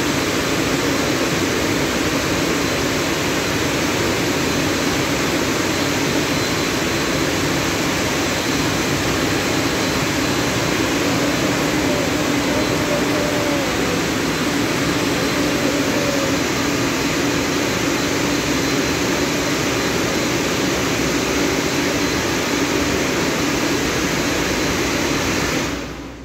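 Dryer blowers of a Christ rollover car wash gantry running: a steady, loud rush of blown air with a low hum under it as the car is dried. The sound fades out near the end.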